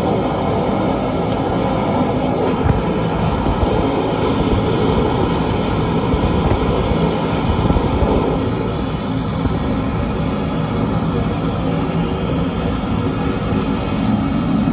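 High-pressure drain-jetting machine running steadily, its engine-driven pump and jet clearing grease from a drain pipe. The sound eases a little about eight seconds in.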